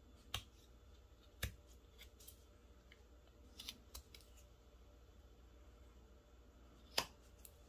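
Carving knife slicing small chips off a wooden figure blank: a handful of short, sharp snicks spaced a second or more apart, the loudest near the end.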